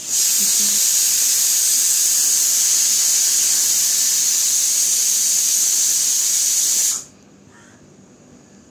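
Pressure cooker whistle going off: a loud, steady, high steam hiss that lasts about seven seconds and then cuts off sharply.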